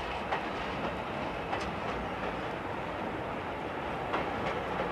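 JNR Class C62 steam locomotive working, with a steady rush of steam and a few sharp, irregular knocks.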